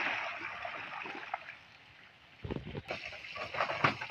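Water splashing as a plastic crate of fish is tipped out into a pond, the splash fading away over about two seconds. After a break, a run of sharp knocks and clatter follows.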